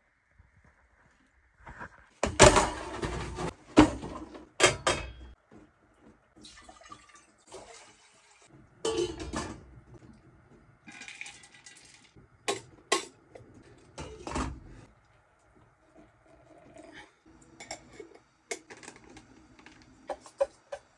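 Cooking sounds: a stainless steel pot and its lid clanking and knocking on a camp stove, with water and dry food poured from a carton into the pot. Sharp clatters come in irregular bunches, the loudest in the first few seconds, with hissing stretches of pouring between them.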